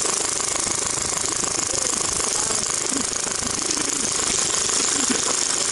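Classic Army M132 Microgun airsoft minigun firing one long continuous burst: a steady, loud, rapid mechanical rattle with a hiss that starts abruptly and does not let up.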